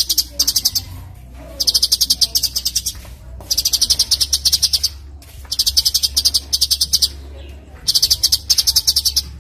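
A songbird singing a high, rapid trill of about ten notes a second, given in repeated phrases of just over a second each, about every two seconds.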